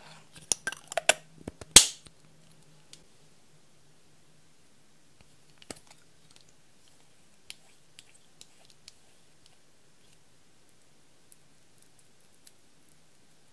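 Lipstick cases being opened and handled: a quick run of sharp clicks and snaps in the first two seconds, the last one the loudest, then a few light scattered clicks.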